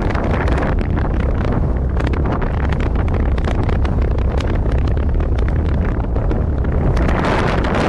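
Wind buffeting the microphone of a skier's camera during a fast downhill run, a steady low rumble, with skis rushing and scraping over groomed snow.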